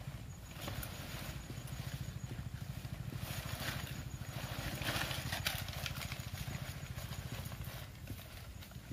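Leafy branches rustling and crackling as they are gathered by hand and stuffed into a cloth bag, loudest about midway, over a steady low rumble.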